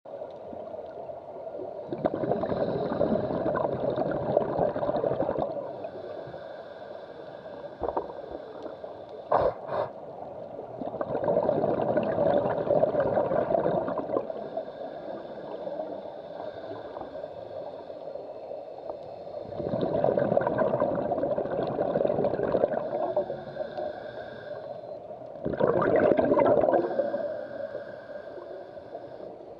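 Scuba regulator breathing heard underwater: four long gurgling bursts of exhaled bubbles, roughly every seven seconds, with a faint hiss between them. Two sharp clicks come about a third of the way through.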